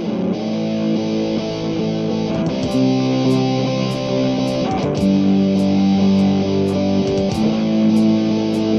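Background music: guitar playing held chords that change every second or two.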